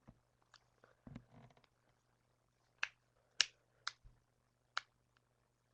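Knuckles cracking: a handful of sharp, separate pops, most of them in the middle of the stretch, about half a second to a second apart, over a faint steady hum.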